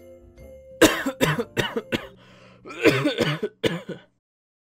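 A man coughing and clearing his throat into a microphone, several sharp coughs in a row, over a low steady mic buzz. Everything cuts off abruptly about four seconds in.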